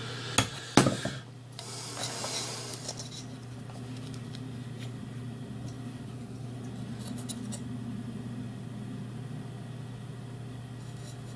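Small metal tools and parts being handled on a workbench: two sharp clicks in the first second, then a second or so of rubbing and rustling, and a few faint ticks later, over a steady low hum.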